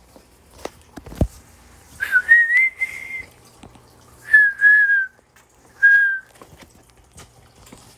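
A person whistling three short notes: the first slides up and is held for about a second, the second is a little lower and slightly falling, the third is brief. A few faint taps and a soft low thump come before the whistling.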